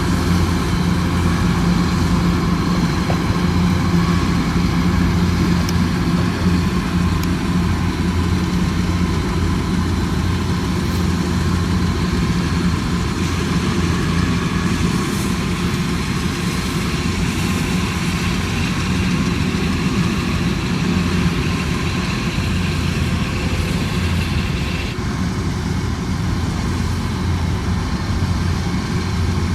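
Combine harvester's engine running steadily under load, a continuous low hum with machinery noise above it.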